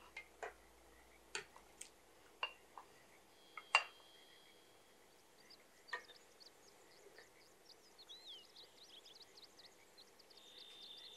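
Wooden spatula knocking and scraping against a bowl and pan as fried fish pieces are tipped into the curry, a string of separate knocks with the loudest about four seconds in. After that, faint small pops from the gravy bubbling at the boil.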